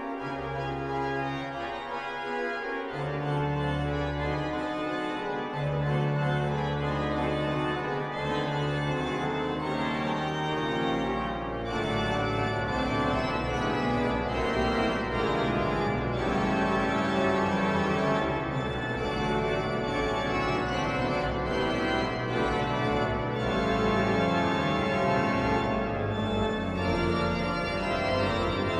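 The 1727 Müller pipe organ playing sustained chords over held pedal bass notes. The sound turns fuller and busier about eleven seconds in.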